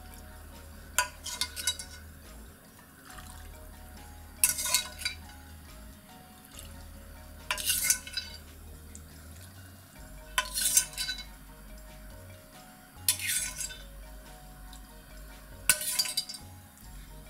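A metal ladle scooping broth from a steel pan and pouring it over seafood in a ceramic bowl: a clink and a short splash about every three seconds, six times.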